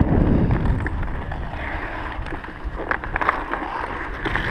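Ice skate blades scraping and gliding on rough pond ice, with wind buffeting the microphone loudly for about the first second. A few sharp clicks come about three seconds in.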